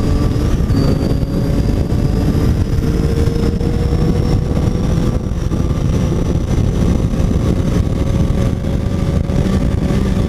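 Triumph Tiger 800 XC's three-cylinder engine pulling steadily while riding, its pitch rising slowly as the bike gains speed, over heavy wind and road rumble.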